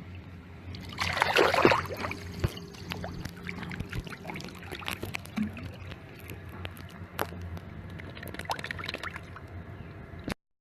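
A dachshund splashing through shallow pool water: a loud splash about a second in, then steady sloshing with many small splashes as it moves. The sound cuts off suddenly near the end.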